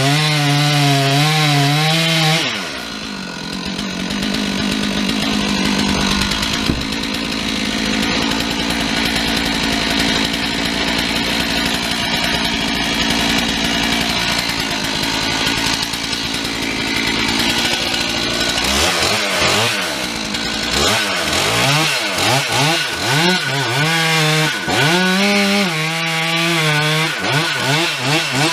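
Chainsaw at full revs, then dropping in pitch under load as it cuts into wood for about sixteen seconds. Near the end it is revved up and down again and again.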